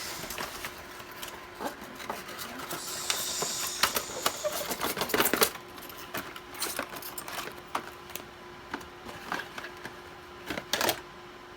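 A product box and its packaging being handled and opened by hand: a run of sharp clicks and taps, with crinkling about three to five seconds in. A faint steady hum runs underneath.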